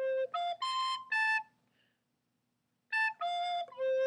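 Soprano recorder playing a slow pattern of separate tongued notes: four notes ending on A, a pause, then three more starting again on A.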